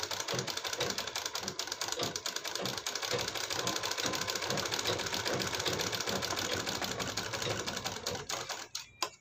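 Sewing machine stitching a seam at a steady, fast rate, the needle strokes running together in a rapid, even clatter. It stops near the end, followed by a couple of clicks.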